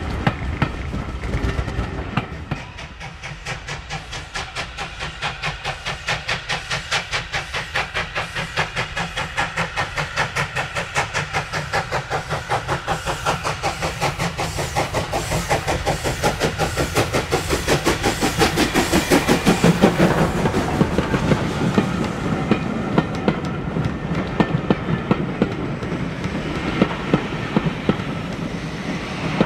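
LSWR T9 4-4-0 steam locomotive 30120, a two-cylinder engine, working a train, its exhaust beating in a steady, even rhythm that grows louder as it approaches and passes. Then its coaches roll by with sharp clicks of wheels over rail joints. For the first couple of seconds there is the low rumble of the tail of a train already passing.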